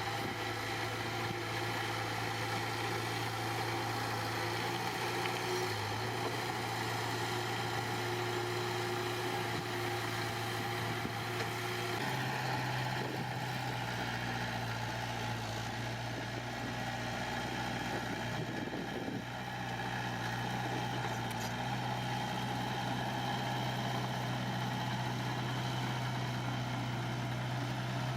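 Heavy-equipment diesel engine running steadily, its note shifting about twelve seconds in.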